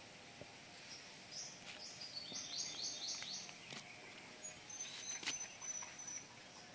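A bird calling: a quick run of about eight short high notes, then a thin high whistle held for a second or two. A few sharp clicks come with it, the loudest about five seconds in.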